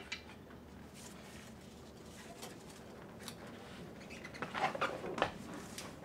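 Pry bar levering against a wood block under a cylinder head that is held fast by its sealant. Faint creaks and scrapes, with a short run of louder creaks and knocks about four and a half to five seconds in, and no pop of the head breaking loose.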